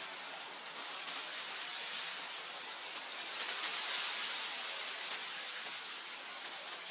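Wind blowing over a grassland, a steady hiss that swells a little about four seconds in and eases again.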